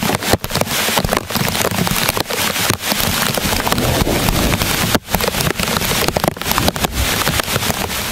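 Heavy rain falling, a loud dense patter with many drops striking close to the microphone. It stops abruptly near the end.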